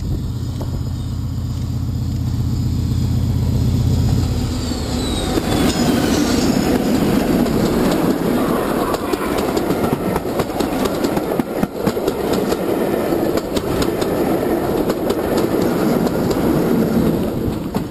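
Diesel-hauled passenger train passing close by: the lead diesel locomotive's engine drones loudly as it approaches and gives a falling whine as it goes past about five seconds in. After that the coaches rattle by with a rhythmic clickety-clack of wheels, and a second diesel locomotive at the rear passes near the end.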